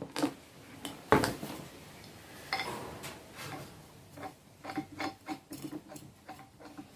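Scattered clicks and light plastic-and-metal rattling as a new angle grinder and its parts are handled, with one sharper click about a second in.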